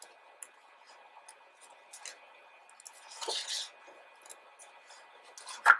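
A page of a large photobook being turned: a short papery swish a little over three seconds in, with faint paper ticks and rustles around it. A brief sharp sound just before the end is the loudest thing.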